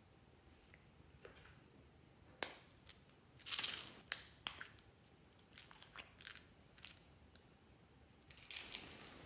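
Small plastic containers being handled and opened by hand: sharp plastic clicks and short scrapes, with a loud hissing burst a few seconds in and a longer rustling burst near the end.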